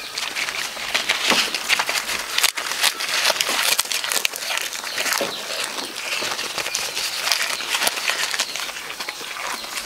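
Goat tearing and chewing jackfruit leaves close up: a dense, irregular run of crisp leaf rustling and crunching.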